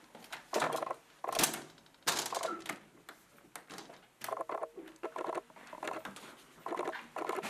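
Doors being handled: a balcony door being closed and a brass door knob and latch being worked, giving a string of short clicks, knocks and rubs with small gaps between.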